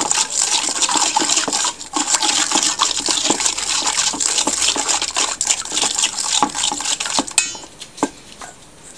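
White plastic spoon stirring an olive-oil and paprika marinade in a stainless steel bowl: steady sloshing of the oil with many small clicks and scrapes of the spoon against the metal. The stirring stops with a sharp tap about seven seconds in.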